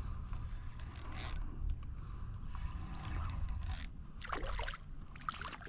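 Hooked fish being played and reeled in: intermittent scraping and water-splash noises in a few short bursts, over a steady low rumble of wind on the microphone.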